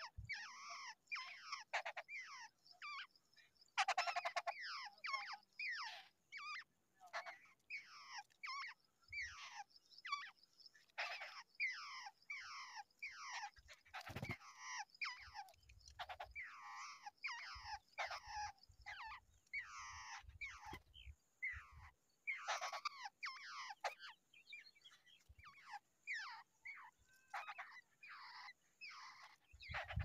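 Babblers calling at the nest: a rapid, harsh chatter of short falling notes, several a second, that runs on without a break.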